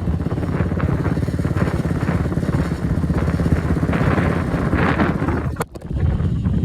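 A four-wheeler's engine running steadily, with a brief break near the end.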